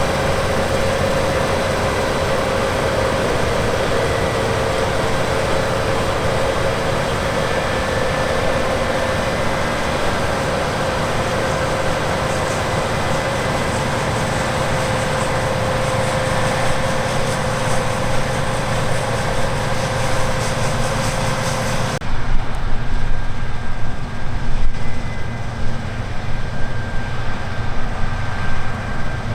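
Large harvest machinery running steadily, engine noise with a steady whine. About three-quarters of the way through the sound changes abruptly to a rougher, more uneven machine noise.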